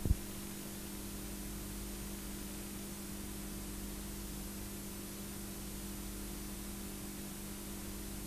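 Steady electrical mains hum with a faint hiss from the blank stretch of a videotape after the recorded programme ends, with a small click just after the start.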